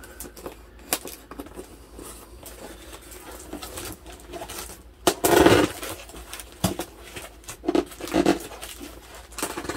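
Handling noise from a cardboard shipping box wrapped in packing tape: scattered scuffs, taps and crinkles as hands press on and shift it, with a louder scrape a little after five seconds and two smaller ones near the end.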